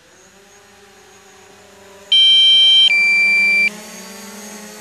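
Drone controller's low-battery alarm: one loud two-part electronic beep about two seconds in, a high chord then a single lower tone. A steady low hum runs underneath.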